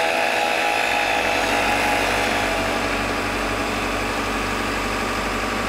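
Two-stroke disc cutter (Partner K1250) running at full revs as its abrasive disc cuts through a steel rail, a steady whine. About halfway through, the whine gives way to the lower steady running of an excavator's diesel engine as it lifts a bundle of concrete sleepers on chains.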